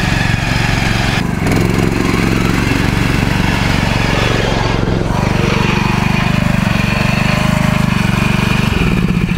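Riding lawn mower engine running hard at high throttle while the mower is driven through mud. Its note changes shortly before the end.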